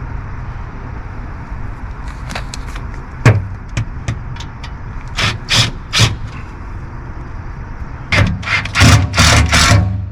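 Sharp knocks of metal support bars being handled and fitted, then a power driver running in several short bursts near the end, driving stainless steel screws into the metal bracket structure.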